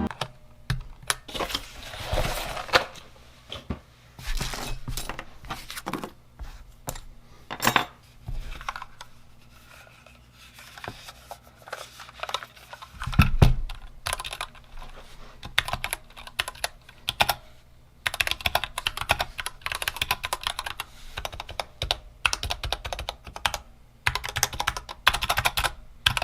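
Typing on a mechanical keyboard with Gateron Red linear switches and PBT keycaps in a wooden-case GK61: keystrokes clattering in uneven runs, turning into a dense, fast run over the last eight seconds. One louder knock comes about thirteen seconds in.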